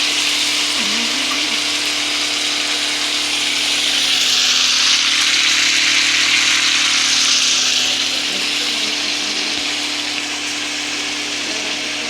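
Seasoned pork frying in hot oil in a pot: a loud, steady sizzle that swells for a few seconds in the middle, over a steady low hum.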